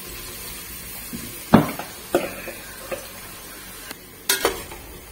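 Sliced onions sizzling in ghee in a metal pot as they are fried toward golden brown, stirred with a perforated metal skimmer ladle. A few sharp clanks of the ladle against the pot, the loudest about a second and a half in.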